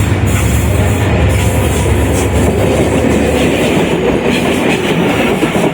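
A train passing close by: a loud, steady rumble of wheels running over the rails.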